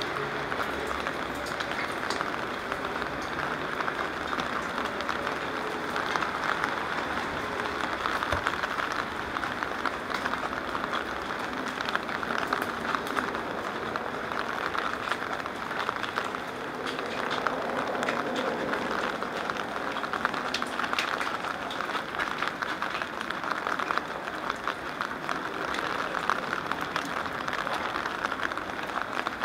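Steady rain pattering: dense, close raindrop ticks on the camera's rain cover over the hiss of rain on wet pavement.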